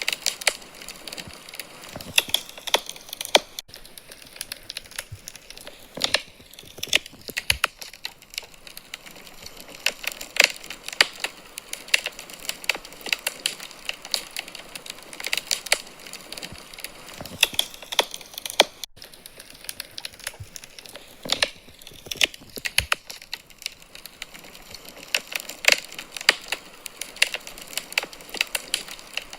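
Wood fire in a fireplace crackling, with irregular sharp pops and snaps over a soft steady hiss.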